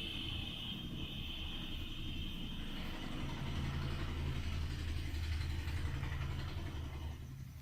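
A low engine rumble, growing stronger about three seconds in, with a steady high-pitched whine over it that fades out near the end.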